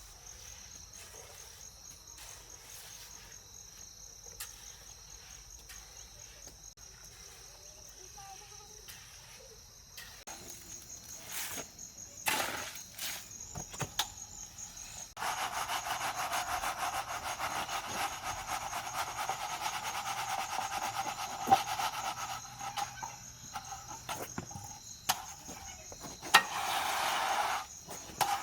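Insects trilling steadily and high-pitched, with scattered knocks. About halfway through, a louder rough scraping joins in and runs on, with a short break near the end.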